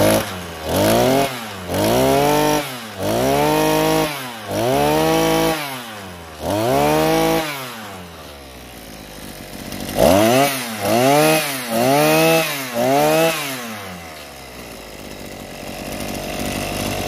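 NKS26 brush cutter's small 26 cc two-stroke engine being revved on the throttle: about six rising-and-falling revs, a couple of seconds at idle, then about five quicker revs before it settles back to idle.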